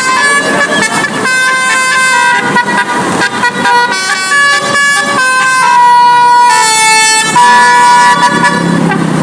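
A tour bus's multi-tone 'telolet' musical air horn playing a loud melody of stepped notes, each held about half a second to a second. The horn stops near the end, leaving a rumbling engine and background noise.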